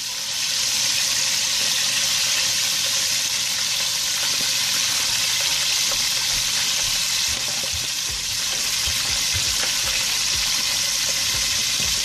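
Batter-coated chicken drumsticks deep-frying in a pot of oil over a medium-low flame, giving a steady, even sizzle.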